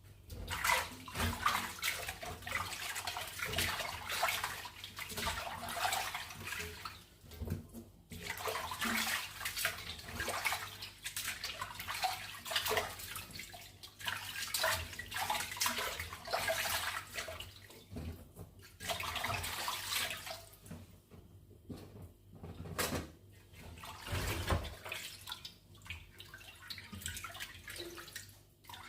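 Water running from a kitchen tap in spells of a few seconds, splashing, with short breaks between them.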